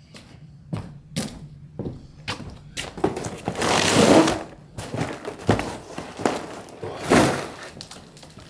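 Cardboard boxes and loft rubbish being handled: rustling and scraping of cardboard with scattered knocks and thuds. The loudest stretch of rustling comes about three to four seconds in, and a shorter one about seven seconds in.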